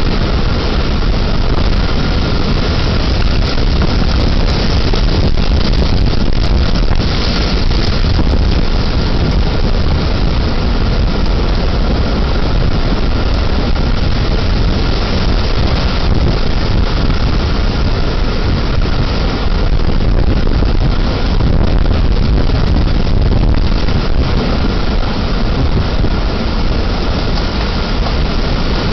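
Tornado wind and rain on an outdoor security camera's microphone: a loud, steady rushing noise, heaviest in the low end, with scattered faint ticks.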